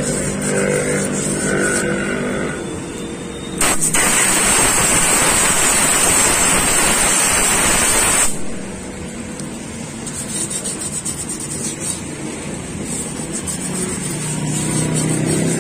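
Compressed air from an air blow gun hissing in one blast of about four and a half seconds, blowing sanding dust out of a motorcycle's drum brake hub. Before and after the blast, an engine runs steadily.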